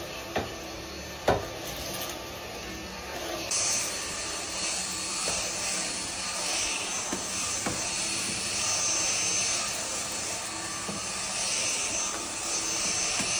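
Cordless stick vacuum running over a hard floor, sucking up rock salt and grit that scratches and rattles through the head and tube. Two sharp knocks in the first second and a half, and from about three and a half seconds in a louder steady hiss.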